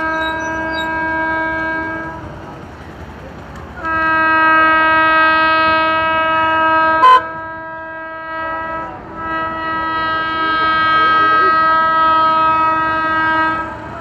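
Horn of an approaching WAP-7 electric locomotive sounding three long blasts on a single steady note: about two seconds at the start, about three seconds from four seconds in, and about four and a half seconds from nine seconds in. A short sharp click, the loudest moment, comes just after the second blast.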